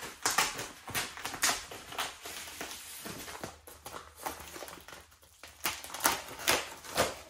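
Plastic packing-slip pouch being peeled and torn open on top of a cardboard box: an irregular run of crinkling, crackling plastic with rustles, louder around one and a half seconds in and again around six seconds.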